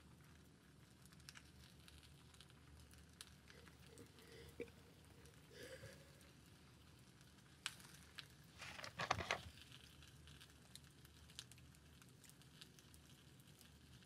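Near silence: faint room tone with a few small clicks and rustles. The loudest is a brief rustle about nine seconds in.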